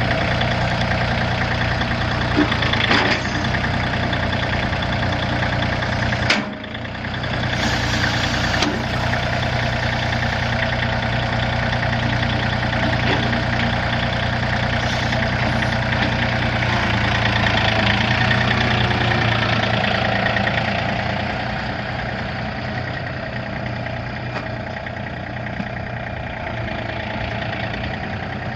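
John Deere 3025E compact tractor's Yanmar three-cylinder diesel running steadily, with a sharp click about three seconds in and a brief drop in level about six seconds in; the engine sound is a little quieter over the last several seconds.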